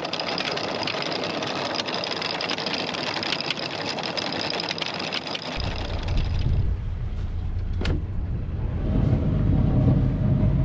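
Sailboat's anchor windlass paying out chain as the anchor is dropped: a steady clatter of rapid clicks, giving way about five and a half seconds in to a deeper low rumble.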